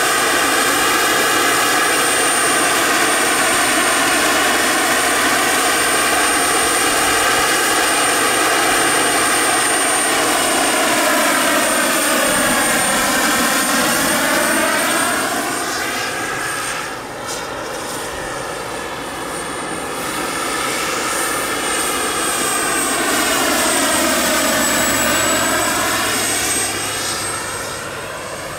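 Turbine-powered large-scale RC Mil Mi-24 helicopter in flight: a steady high turbine whine over the main-rotor and engine sound. The sound sweeps down and back up in pitch twice as the model passes, and grows fainter about midway and again near the end.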